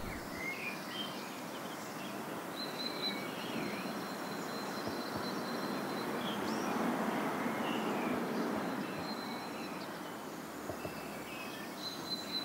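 Outdoor ambience: a steady rushing noise that swells a little in the middle, with small birds chirping now and then.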